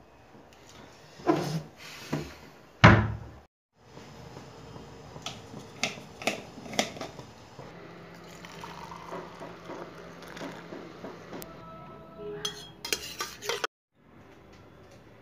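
Metal kitchenware clinking and knocking in several short bursts, with water poured from a pan into a steel mug partway through.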